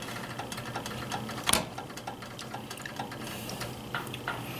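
Butter frying in a hot skillet under a tortilla, a steady crackle of small irregular pops and ticks, with one louder click about one and a half seconds in. A steady low hum runs beneath it.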